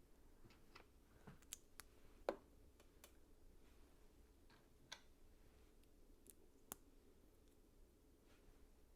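LEGO bricks being handled and pressed together: a few faint, scattered plastic clicks, the loudest a little over two seconds in.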